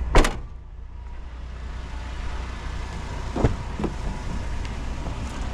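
A van door shuts with a single loud thud just after the start, over the steady low rumble of the van's idling engine; two lighter knocks follow about three and a half seconds in.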